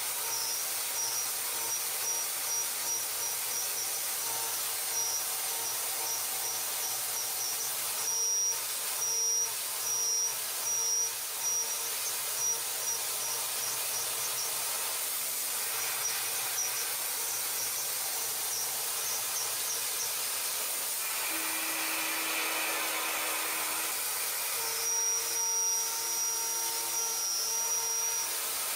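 CNC machine cutting metal over a steady hiss, with a high whine that pulses on and off as the tool engages, and a lower steady tone for a few seconds near the end.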